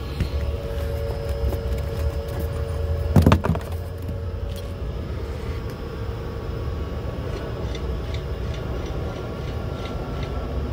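Steady low hum of rooftop mechanical equipment, with a short loud clatter a little after three seconds in and a few faint clicks later.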